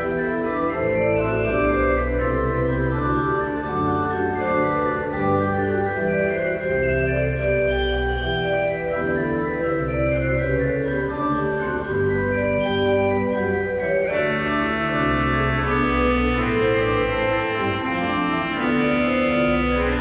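Organ music: slow held chords over a moving bass line, the sound growing fuller about fourteen seconds in.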